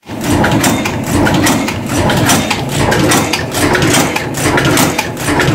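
Cold forging machine (bolt former) for socket cap screws running, with a rapid, even rhythm of metal strikes over a steady mechanical hum.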